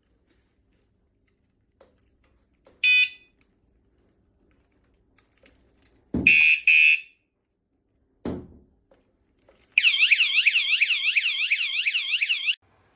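A wireless anti-theft alarm for a bike or motorcycle gives a short chirp. Then come a knock with a double beep and a second knock. Near the end it sounds a loud, fast-warbling siren, about four sweeps a second, for about three seconds before cutting off.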